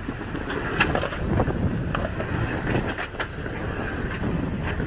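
Rock-crawling 4x4 truck's engine rumbling at low speed, with scattered clicks and crunches of tires grinding over rock as the truck struggles for grip.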